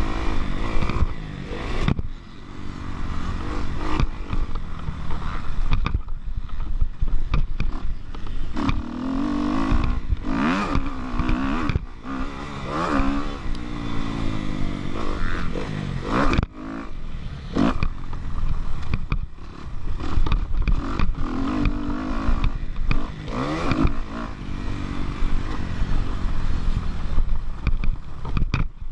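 Kawasaki KX250F four-stroke motocross bike engine at riding speed, revving up in rising sweeps and dropping off again and again as the throttle is opened and shut through the track's sections, with wind rush on the microphone.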